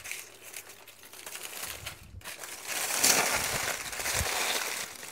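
Aluminium foil and baking paper being unwrapped, crinkling and rustling; quieter at first, louder from about three seconds in.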